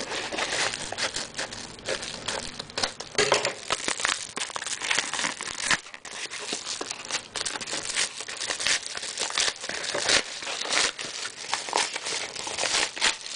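A kraft shipping envelope being opened by hand: the packaging crinkles and tears in a continuous run of irregular crackles as it is handled and the contents are pulled out.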